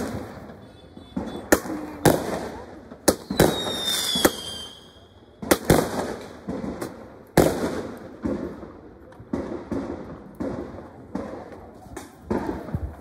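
Fireworks going off: a string of sharp bangs at uneven intervals, about one a second. A whistle falls in pitch about four seconds in.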